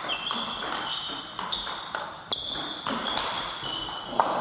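A table tennis rally: the plastic ball clicking quickly back and forth off the rubber bats and the table top, each hit with a short high ping.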